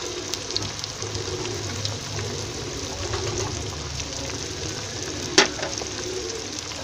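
Mustard oil sizzling and crackling steadily in a clay pot with frying onions and tomatoes, as ground spices are tipped in. One sharp tap about five seconds in.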